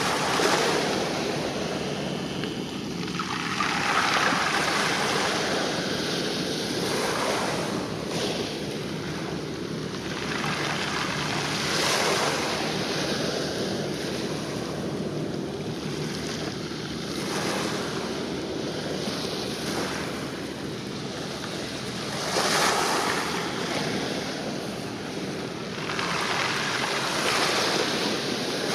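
Small waves washing against a rocky shoreline, surging up every four or five seconds, with wind buffeting the microphone.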